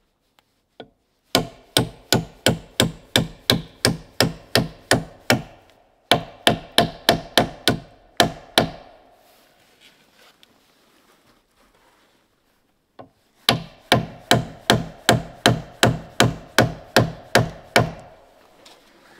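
Rapid hammering on a roof log: three runs of evenly paced, ringing blows at about three a second, the last run starting about two-thirds of the way in after a pause.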